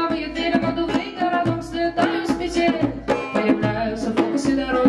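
Live acoustic band playing an instrumental passage: acoustic guitar with hand percussion keeping a steady beat.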